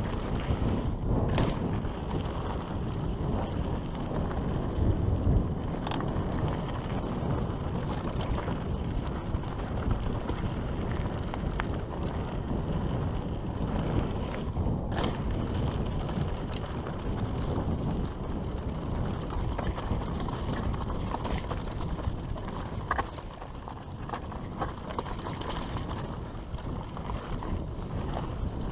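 Mountain bike descending a dry dirt trail: a steady rumble of tyres rolling over dirt and gravel, with scattered sharp clicks and knocks as the bike rattles over bumps.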